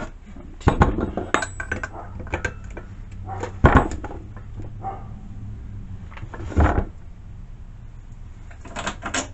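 A 24-inch steel chainsaw bar and chain being handled and fitted to a chainsaw: a few separate bouts of metal clanks and rattles, the loudest about four seconds in.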